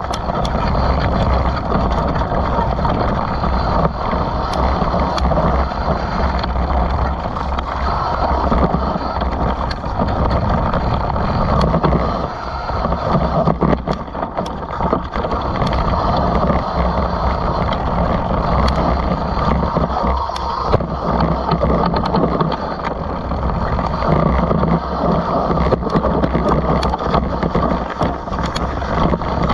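A downhill mountain bike ridden down a dry dirt and leaf-covered trail, heard from a camera on the rider: a steady rumble of tyres rolling over dirt and wind on the microphone, with scattered sharp clacks and rattles from the bike over bumps.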